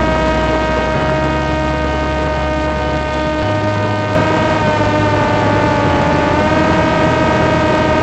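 Parrot Disco fixed-wing drone's electric motor and pusher propeller running as a steady whine while the drone climbs, over a steady rushing noise. The pitch dips slightly about five seconds in and comes back up near the end.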